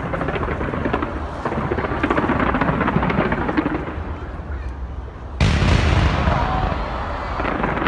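Aerial fireworks going off in quick succession, a dense run of pops and crackles, with a sudden loud boom about five and a half seconds in.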